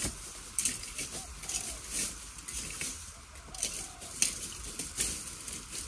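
Dry bamboo stems and leaves rustling and crackling in short irregular bursts, about once a second, as someone reaches into a bamboo clump gathering bamboo shoots.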